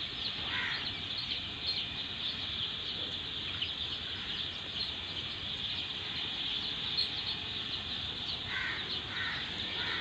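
A large flock of four-day-old chicks peeping steadily, hundreds of high chirps overlapping into one dense chorus.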